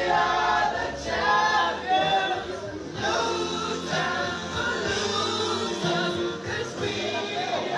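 A group of men singing a song together, several voices at once over a dressing-room din.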